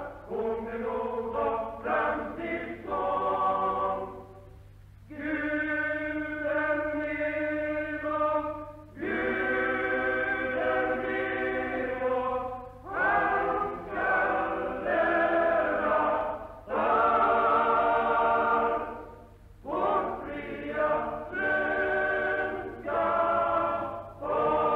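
Male-voice choir singing sustained phrases with short breaks between them. It is an old recording, with nothing above the upper mids and a steady low hum underneath.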